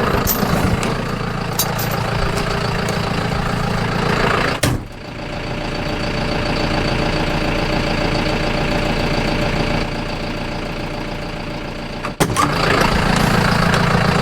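Tractor engine running steadily while hauling a hay bale on a bale feeder, with two abrupt cuts where the sound jumps about 5 and 12 seconds in.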